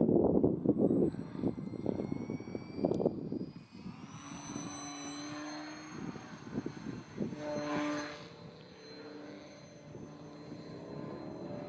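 Small electric RC aerobatic plane (Twisted Hobbies Acro Beaver) in flight, its motor and propeller whine rising and falling in pitch with the throttle, swelling as it passes about eight seconds in. Heavy wind buffets the microphone in gusts during the first few seconds, louder than the plane.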